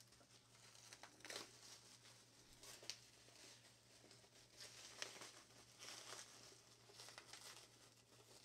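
Faint crinkling and rustling of plastic wrap as it is pulled off a boxed toy van, in scattered handling noises over a low steady hum.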